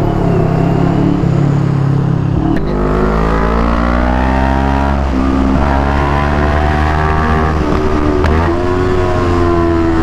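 CFMoto 400NK motorcycle's parallel-twin engine running through a newly fitted VMAX exhaust pipe while riding. After a steady first two seconds the engine pitch climbs under acceleration, drops at a gear change about five seconds in, climbs again and drops once more about eight seconds in.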